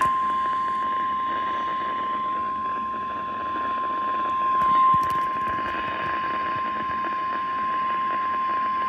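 Weather-radio emergency alert tone, a single steady high beep at about 1050 Hz held for about nine seconds over a background hiss and cutting off near the end. It is the attention signal announcing a severe thunderstorm warning broadcast.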